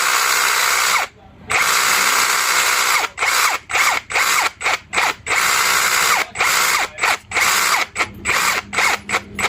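DaYi cordless lithium-battery rotary hammer running unevenly: after about three seconds of running, it keeps cutting out and picking up again in short spurts. This on-off, fast-and-slow running is the fault, which the repairer thinks is most likely the trigger switch.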